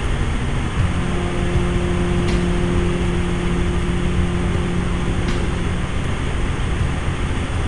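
Helicopter running in flight, heard from on board as a loud, steady engine and rotor noise. A steady low hum rises over it about a second in and fades out near six seconds.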